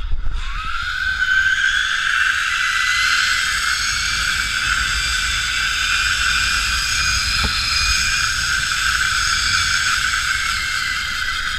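Zipline trolley's pulley wheels running along a steel cable: a steady high whine over a rushing hiss, climbing slightly in pitch in the first second or so as the rider picks up speed.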